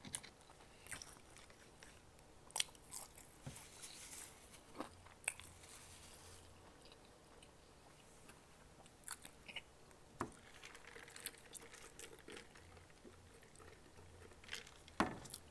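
Faint, close-miked mouth sounds of a person chewing McDonald's french fries: scattered soft clicks and wet smacks. A louder sound near the end as a soft drink is sipped through a straw.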